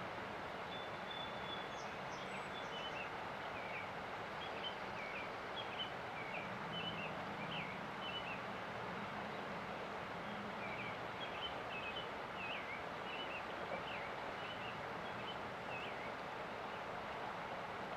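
Small songbirds chirping, many short high chirps coming several at a time over a steady rush of river water.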